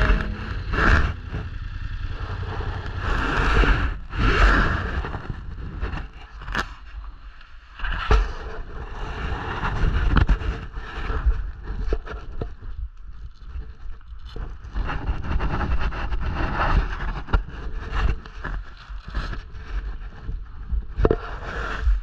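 Ride noise from a moving vehicle: wind buffeting the microphone over a heavy, uneven rumble, with irregular knocks and scrapes.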